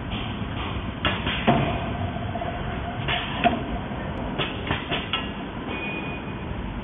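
CNC wire bending machine working the wire: steady mechanical running noise with sharp metallic clacks in clusters, about a second in, about three seconds in, and three more around four and a half to five seconds. A steady whining tone sounds between the first two clusters.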